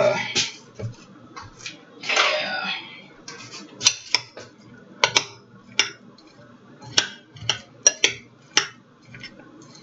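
Metal spoon clinking against a ceramic baking dish as chickpea salad is stirred. There is a brief scrape about two seconds in, then a run of sharp, irregular clinks.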